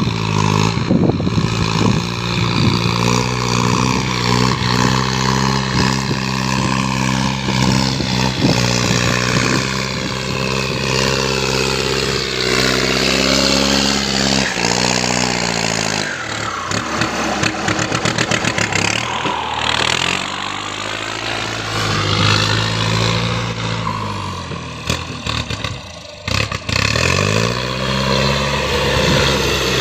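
Large engine running steadily, its pitch sagging and recovering several times as it comes under load.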